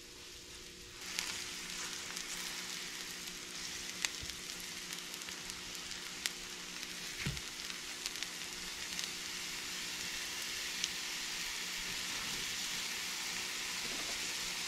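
Lion's mane mushroom slices searing in butter in a hot frying pan: a steady sizzle that comes in about a second in and grows slowly louder, with scattered spatter pops.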